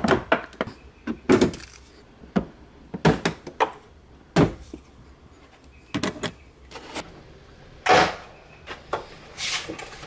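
Plastic trim clips being pried out and the Infiniti Q50's trunk trim panel and carpeted liner pulled free: a string of irregular sharp snaps and knocks with scraping between them.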